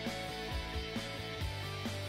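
Background music with held notes over a bass line and a steady beat.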